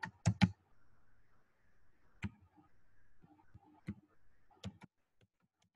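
Computer keyboard being typed on slowly: a handful of separate, faint key clicks a second or so apart, with a few lighter taps near the end.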